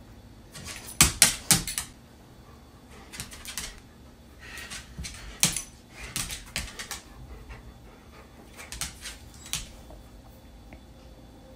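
Dog claws clicking and tapping on a laminate floor as a golden retriever paws at and steps around a puppy, in several short bursts of sharp clicks.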